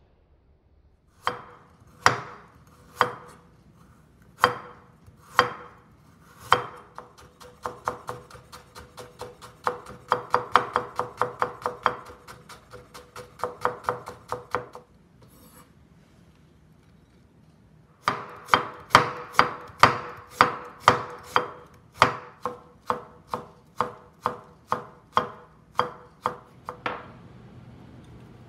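Kitchen knife julienning carrot and daikon on a wooden cutting board: sharp knocks of the blade striking the board. A few single strokes about a second apart come first, then a quick run of several strokes a second. After a pause of about three seconds comes another run of steady strokes, about two a second.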